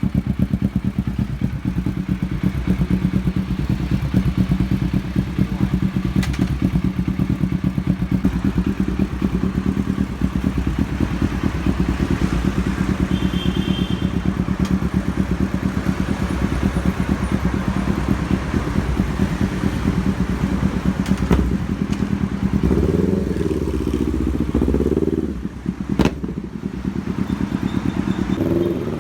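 Yamaha Sniper 150 single-cylinder engine idling steadily through a freshly fitted Akrapovic full-system exhaust, a dense even exhaust beat, for a sound check. Near the end the pitch wavers up and down briefly, and there is one sharp click.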